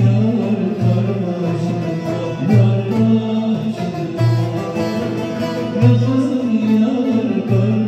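Live Turkish folk music: two plucked bağlamas (saz) with a frame drum and a metal darbuka keeping the rhythm, and a man singing long held notes.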